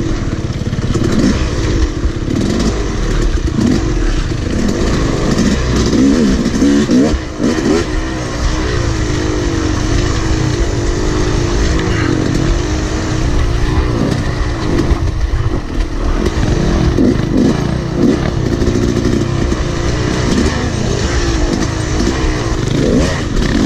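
Dirt bike engine heard from on the bike itself, its revs rising and falling constantly as the rider works it along a rough, technical trail.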